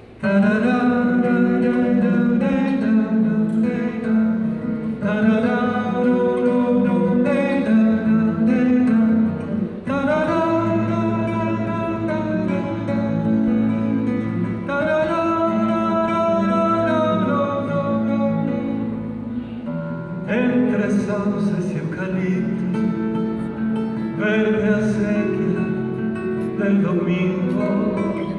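A man singing a song with long held notes, accompanying himself on acoustic guitar.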